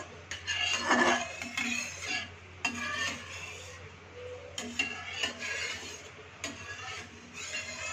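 Metal spatula scraping and clinking against a kadai (wok) as oil is spread around the pan, in irregular strokes with the loudest clatter about a second in.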